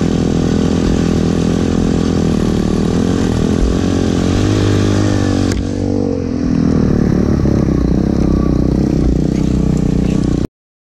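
Loncin dirt bike engine running under the rider, its pitch rising and falling as the throttle is worked, with a cut about five and a half seconds in. The sound stops abruptly near the end.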